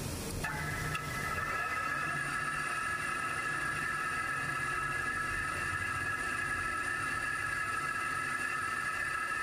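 Metal lathe switched on about half a second in, then running steadily with a high whine, turning a tapered threaded shaft in its chuck.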